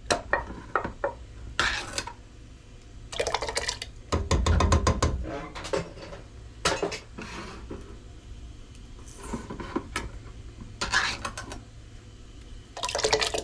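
Kitchen clatter of metal utensils against a cooking pot: scattered clinks, knocks and short scrapes, with a quick run of clicks about four seconds in.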